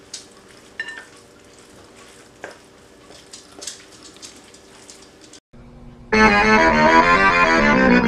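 A fork clinking and scraping against a glass mixing bowl while stirring a soft cheese filling. About five and a half seconds in the sound cuts out, and loud piano-led music with rapidly repeating notes starts.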